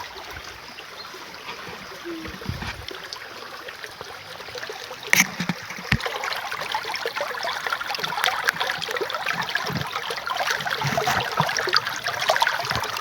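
Water of a shallow stream trickling and splashing, with small splashes growing louder from about five seconds in as someone wades into it, and one sharp click about five seconds in.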